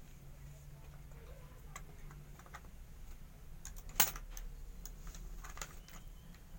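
Light, scattered clicks and taps of a CPU and motherboard socket being handled while the CPU is seated, with one sharper click about four seconds in.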